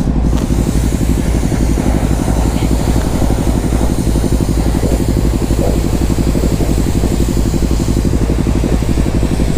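An engine runs steadily at idle close by, with an even low pulse, while a pressure washer sprays water over motorcycles, adding a constant hiss.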